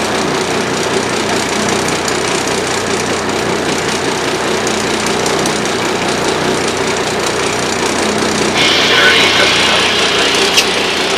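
Boat engine idling steadily under a hiss of wind and water. About eight and a half seconds in, a louder high hiss joins, and a single sharp click comes near the end.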